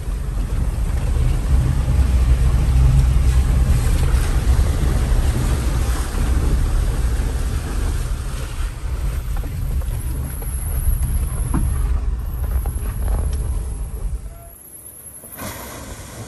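Small four-wheel-drive engine and drivetrain rumbling loudly from inside the cab as it drives through a muddy water hole. About fourteen seconds in, the sound drops sharply to the quieter, more distant splash of the vehicle pushing through the water.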